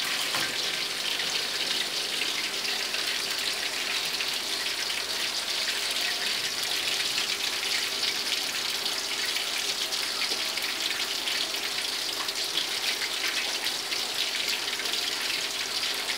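Flour-battered small fish deep-frying in hot oil in an aluminium wok: a steady sizzle with dense, fine crackling.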